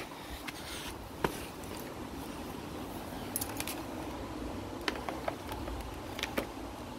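Footsteps in slide sandals on a tiled floor: a few light, scattered clicks and taps over a steady low background hum.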